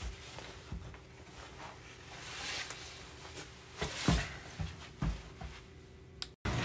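Sneakers being put on: soft thumps of feet and shoes on a doormat with clothing rustling, the loudest thump about four seconds in. The sound cuts off abruptly near the end.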